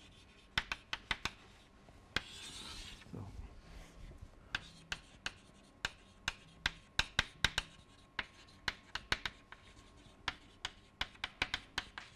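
Chalk writing on a blackboard: quick runs of sharp taps and scratches as letters are formed, with short pauses between words. A longer, softer hiss comes about two seconds in.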